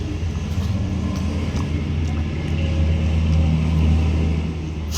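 A low engine hum, swelling a little past the middle and then easing off, with a few faint clicks over it.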